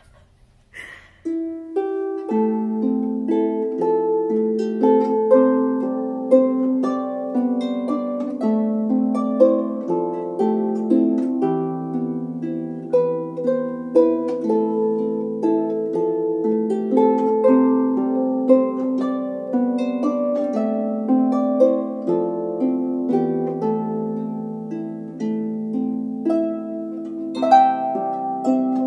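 Harp music: a plucked melody over slower bass notes, starting about a second in.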